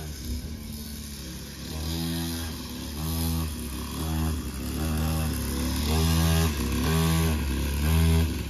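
Child's small dirt bike being ridden. The motor revs up and down in pitch about once a second as the throttle is worked, and it grows louder near the end as the bike comes closer.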